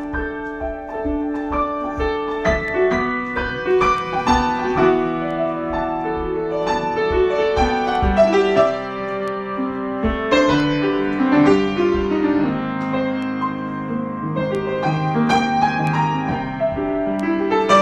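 Solo piano improvisation: a continuous flow of struck notes and chords, held and overlapping.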